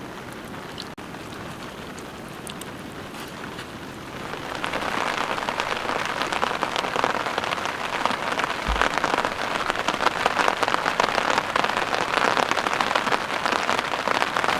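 Heavy rain falling, a dense hiss of drop impacts that steps up louder about four seconds in.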